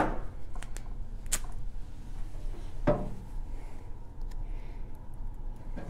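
Hands working inside a steel ammo can: a sharp click, a louder knock against the can about three seconds in, then a few light ticks, over a low steady hum.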